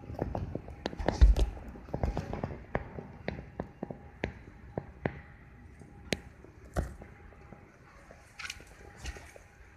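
Sharp, irregular taps and knocks, coming thick for the first few seconds and then thinning out to single clicks a second or so apart. A faint steady hum runs underneath.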